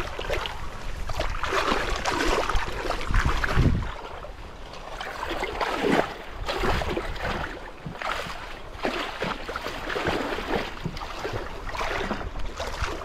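Shallow river water splashing and sloshing in uneven surges as a kayak is walked and pushed through the current by hand, with wind buffeting the microphone.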